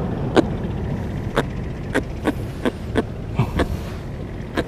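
Irregular sharp taps and clicks, about eight over a few seconds, as a freshly caught juvenile giant trevally with a metal jig hooked in its mouth is handled and set down on rocks. Under them runs a steady low rumble.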